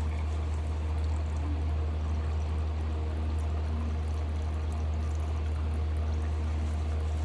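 Engine oil draining from a dirt bike's crankcase drain hole into a catch pan, a steady trickling pour, over a steady low hum.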